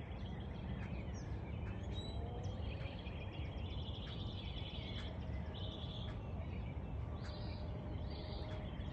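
Songbirds chirping and trilling in short bursts over a steady low outdoor rumble.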